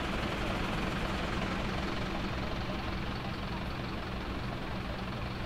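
Diesel engines of parked fire engines running at a steady idle, a low even rumble with no break.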